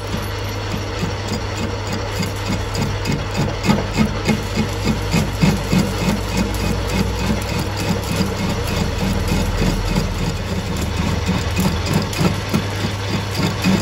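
Metal lathe running under cut, its tool turning a disc harrow hub held in the chuck: a steady machine hum with a fast, even pulsing.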